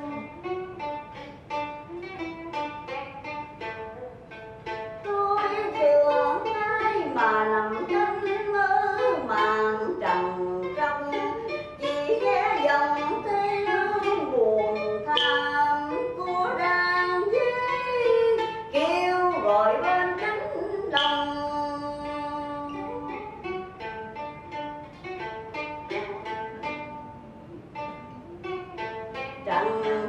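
Vietnamese vọng cổ played live: quick plucked notes of a đờn kìm (moon lute), with a woman singing in long sliding, wavering phrases through the middle stretch. Plucked runs fill the opening seconds and come back after about twenty seconds.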